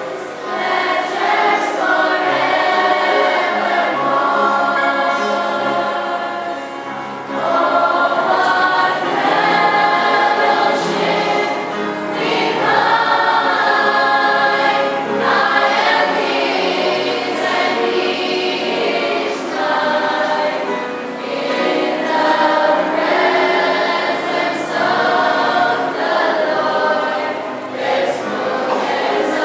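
A church choir singing, many voices together in long held phrases.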